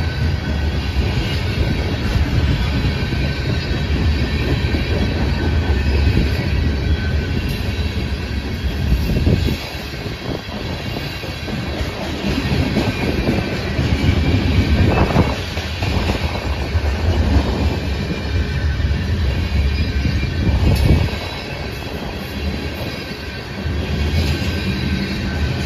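Freight train of covered hopper cars rolling past close by: a steady rumble of steel wheels on rail, with clacking as the wheels cross rail joints.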